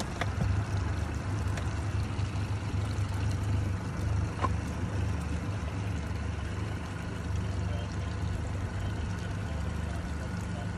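Honda 150 outboard engine idling with a steady low hum, water lapping lightly against the hull.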